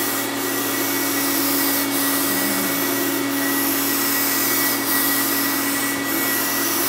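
Paint spray gun spraying shellac: a constant loud hiss of air with a steady hum from its air supply.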